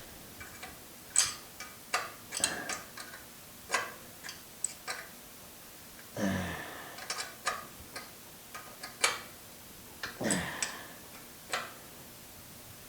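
A 10 mm wrench working bolts on metal saw hardware: irregular sharp clicks and ticks of steel on steel, with two longer scrapes about six and ten seconds in that slide down in pitch.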